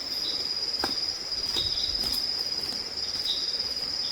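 Insects trilling: a steady, high-pitched, finely pulsing buzz, with short chirps every second or so and a couple of faint clicks.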